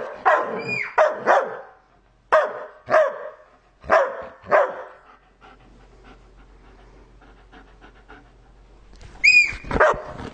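German Shepherd barking, a quick run of about nine short barks over the first five seconds, then quiet for a few seconds. A high-pitched squeal comes near the end.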